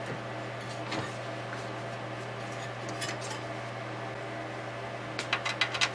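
Scattered light metallic clicks and clinks of circuit boards and parts being handled and seated inside a sheet-metal synthesizer chassis, with a quick run of clicks near the end, over a steady low hum.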